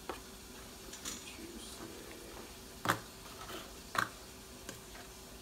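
A fork tapping and scraping in a disposable aluminium foil baking pan as thick brownie batter is pushed around and spread: a few sharp ticks, the two loudest about three and four seconds in.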